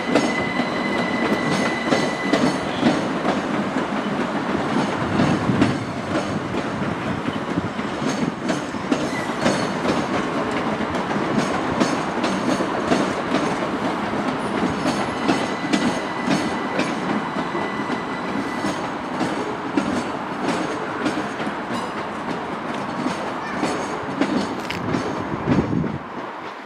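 Train running through on the rails: a steady rumble with rapid clicking of wheels over the rail joints and a faint high whine at times, dropping away about a second before the end.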